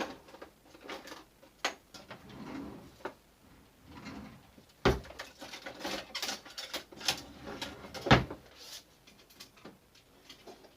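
Spoon knocking and scraping against a pot and plate while cooked tin mackerel is served out, in short irregular clicks and knocks, with two louder knocks about five and eight seconds in.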